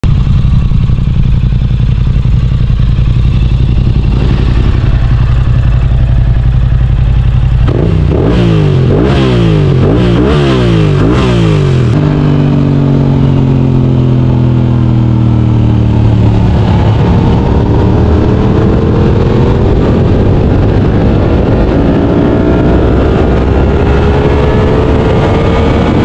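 Yamaha R7's 689 cc parallel-twin engine through an Akrapovic exhaust. It idles steadily, then is revved in a rapid series of throttle blips about eight seconds in. After that its pitch sinks, then climbs again in long pulls as the bike accelerates.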